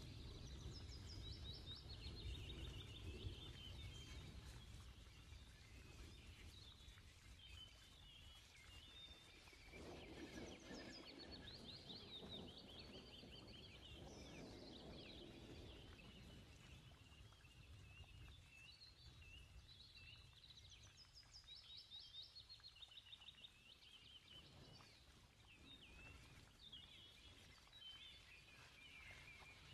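Near silence, with faint bird chirping in quick repeated trills over a low background hum.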